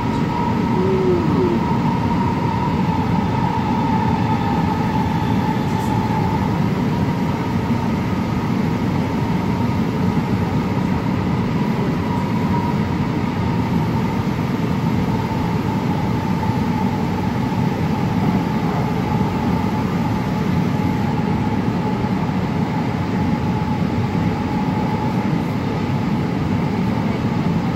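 Inside a 2006 AnsaldoBreda P2550 light rail car under way: a steady rumble of wheels on rails, with a thin electric whine from its traction motors.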